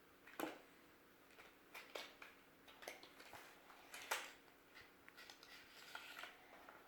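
Faint, scattered clicks and light taps of a smartphone and its retail box being handled as the phone is lifted out, about half a dozen over several seconds.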